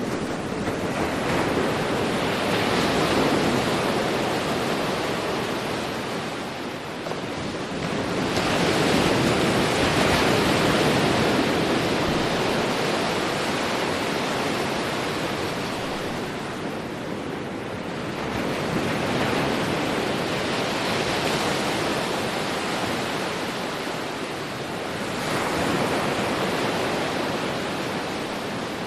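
Ocean surf: waves breaking and washing up the beach in slow surges, each swell rising and falling over several seconds.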